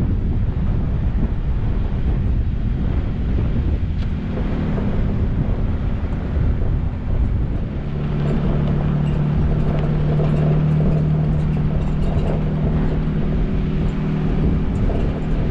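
Ford Raptor pickup driving on a dirt road, heard at a camera mounted on the outside of the truck: wind rushing over the microphone with a steady low engine hum that comes up about halfway through.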